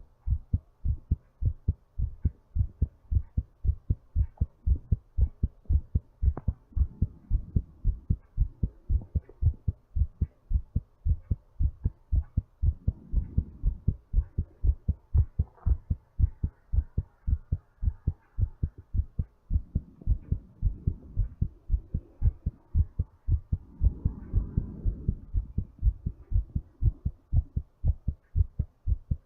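Human heartbeat, fast and regular during recovery from exercise: a quick, steady train of low thumps. Muffled breath sounds swell up every few seconds under the beat.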